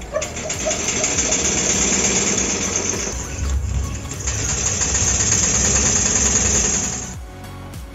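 Small single-cylinder steam engine running on a charcoal-fired boiler, with a loud hiss of steam. The hiss dips about three seconds in, then returns, and fades near the end as the hand works the steam valves.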